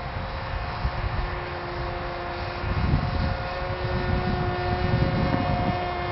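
Wing Dragon RC airplane's brushed electric motor and pusher propeller whining at a steady pitch, with wind rumbling on the microphone.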